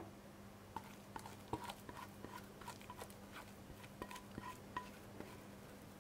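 A spatula scraping chocolate cream into a plastic piping bag, heard as a string of faint small clicks, rustles and short squeaks of the bag, over a steady low hum.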